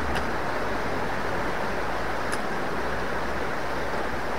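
Steady rush of a small river flowing fast over rocks, with a low rumble underneath and a couple of faint ticks.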